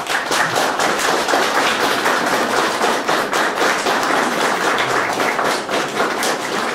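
Audience applauding steadily, many pairs of hands clapping together.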